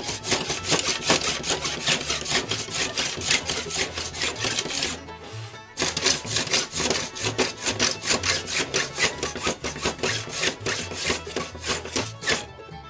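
Small hand plane scraping along a glued bamboo rod blank in quick back-and-forth strokes, about four a second, taking off excess glue; the strokes pause briefly near the middle and stop near the end. Fiddle music plays underneath.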